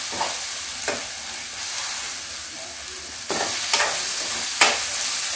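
Tomato and green chilli masala frying in a metal kadai with a steady sizzle, while a metal spoon stirs it, scraping and knocking against the pan several times. The sizzle gets louder about three seconds in.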